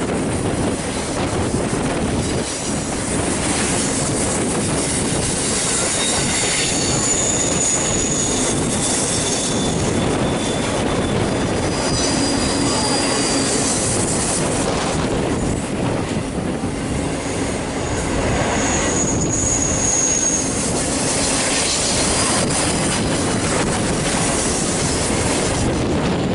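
Union Pacific double-stack container freight cars rolling past steadily, their wheels rumbling and clacking on the rails. Thin, high-pitched wheel squeals rise above the rumble several times: around 7 seconds in, again near 12 seconds, and around 19 seconds.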